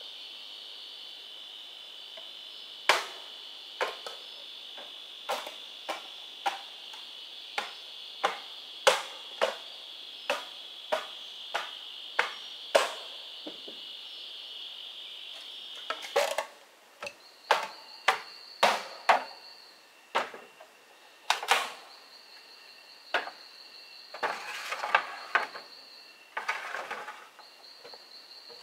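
Sharp knocks of a tool striking bamboo, roughly one a second, over a steady high-pitched insect buzz. About halfway through the buzz gives way to a pulsing insect trill, and near the end the knocks give way to a few rougher scraping bursts.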